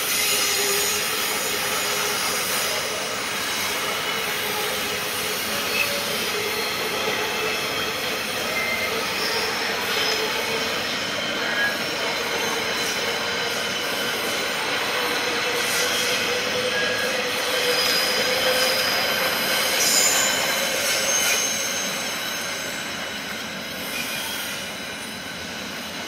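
Freight train's container flat wagons rolling past on a curve, the steel wheels squealing in several shrill held tones over the rumble of the wheels. The sound fades over the last few seconds as the end of the train moves away.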